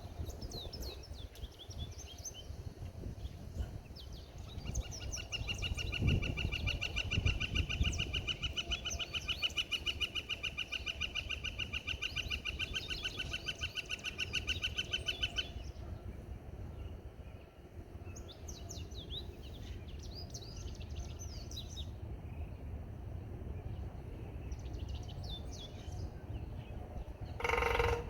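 Pileated woodpecker making a long series of rapid, evenly repeated ringing pulses. The series starts about five seconds in and stops abruptly about ten seconds later. Small birds chirp throughout.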